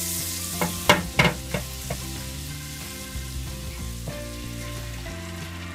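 Melted butter sizzling and foaming in a hot square nonstick frying pan, with a few sharp knocks about a second in. Near the end beaten eggs are poured into the hot butter.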